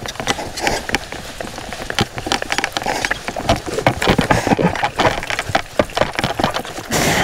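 Quick running footsteps across grass and then pavement on a paramotor landing, mixed with crackling wind and the rustle of the wing's fabric and lines; no engine is heard. A louder rush of hiss comes near the end.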